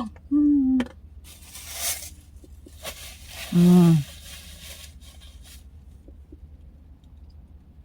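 A woman eating, making two short hummed vocal sounds, one right at the start and one about three and a half seconds in, with a rustling noise around the second.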